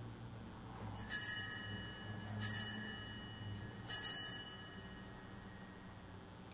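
Altar bells rung three times, each ring dying away over about a second, marking the elevation of the consecrated host at Mass.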